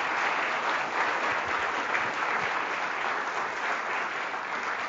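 A seated lecture-hall audience applauding, a steady, dense clapping.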